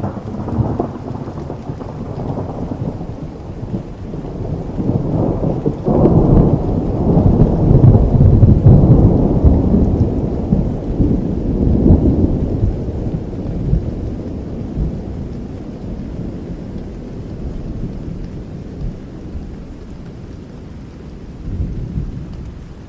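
A long roll of thunder over steady rain. It breaks in suddenly, swells to its loudest rumble partway through, then slowly rumbles away.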